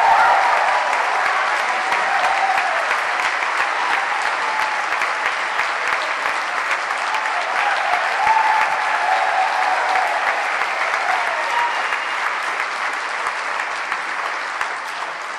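Audience giving a standing ovation: sustained clapping from a large crowd, with a few voices calling out over it, easing off slightly near the end.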